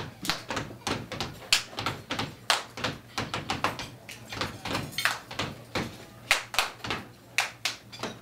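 Body percussion: sharp hand claps and slaps mixed with stomps on a stage floor, several a second in an uneven, syncopated rhythm.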